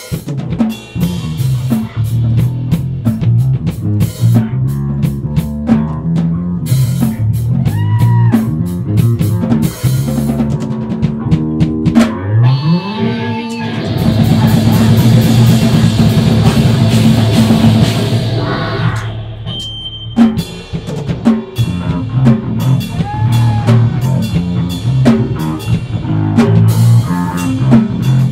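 A live screamo band playing loudly: distorted electric guitar, bass guitar and a pounding drum kit, cutting in abruptly at the start. Near the middle a rising slide leads into a denser, louder stretch of several seconds with washing cymbals, before the choppy driving rhythm comes back.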